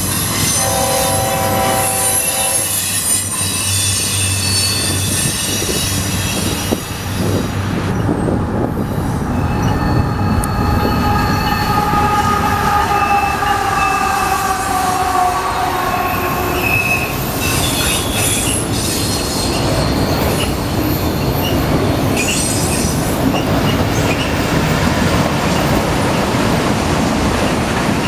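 Diesel-hauled freight train passing close by: the locomotive goes past and then a long string of autorack cars rolls by with steady rumble and high wheel squeal. A short horn chord sounds about a second in, and in the middle the squeal glides slowly downward.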